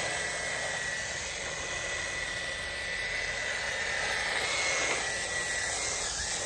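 Small electric motors of 1/16-scale RC drift cars, the brushless UDIRC 1607 among them, running as the cars drive on asphalt. There is a steady high whine that shifts slightly in pitch a few times, over a steady hiss.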